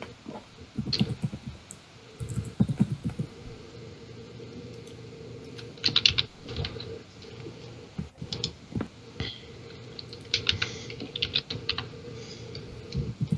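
Computer keyboard typing in short bursts of quick keystrokes, with pauses between the bursts.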